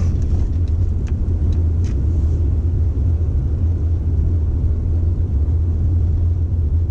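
Steady low rumble of a car driving on a snow-covered road, heard from inside the cabin, with a couple of faint ticks about one and two seconds in.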